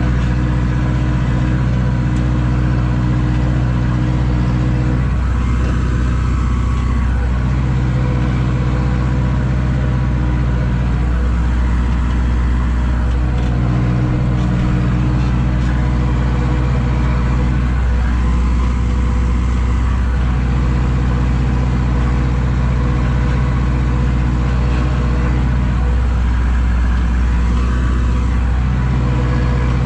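Zetor tractor's diesel engine running steadily under load while pulling a plough, heard from inside the cab. Its low drone swells and eases every few seconds.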